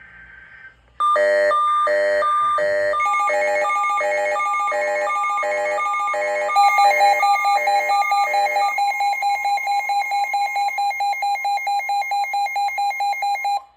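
Emergency weather alert receiver sounding a severe thunderstorm warning alert. Three electronic beeps, then beeps at about two a second, joined partway through by a steady two-note alarm tone. The beeps stop and the tone carries on alone until it cuts off suddenly.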